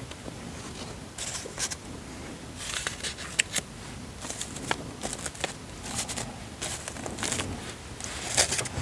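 Paper being handled on a planner page: rustling, crinkling swishes with sharp little clicks and taps scattered through.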